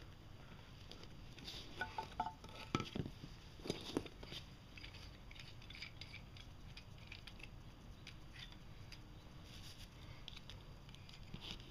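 A cluster of light clicks and taps, with a brief faint clink, as a small metal-framed emblem is pressed and fitted into a recess cut in a wooden paddle; afterwards only faint handling ticks.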